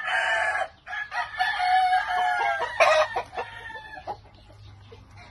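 Gamecock roosters crowing: one crow trails off in the first second, and a second long crow follows from about one to three seconds in.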